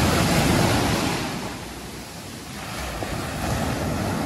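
Ocean surf breaking at the water's edge: a wave crashes and its foam rushes up the sand, easing off about two seconds in before the next wash swells again.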